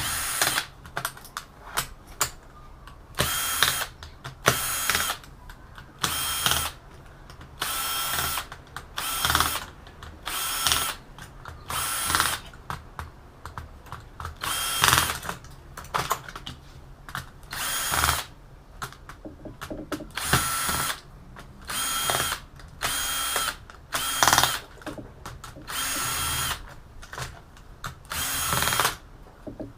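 Power drill driving out screws one after another while an all-in-one PC is stripped: about twenty short runs of the motor, each half a second to a second long, with brief pauses between screws.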